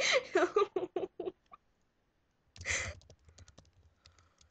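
A young woman's wordless vocal sounds for about a second, then a short burst of breath-like noise, followed by a run of faint light clicks from a computer keyboard or mouse.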